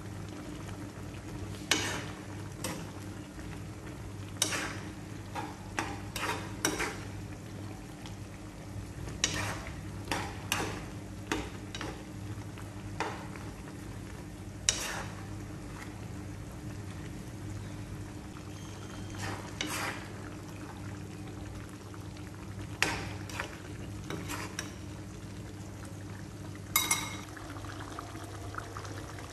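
A metal utensil stirring a thick pork-blood stew (dinuguan) in a nonstick frying pan, with irregular short clicks and scrapes against the pan over a steady low hum.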